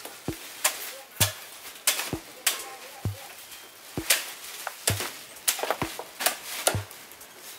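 Meat cleaver chopping through pork ribs on a round wooden chopping block: a heavy thud about once a second, with sharp cracks of blade on bone and wood between.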